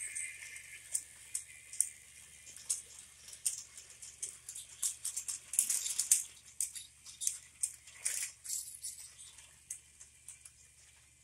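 Plastic toy train and its wagons running along plastic track, making a light, irregular clicking and rattling as the wagons roll past. The clicking is densest in the middle and thins out near the end.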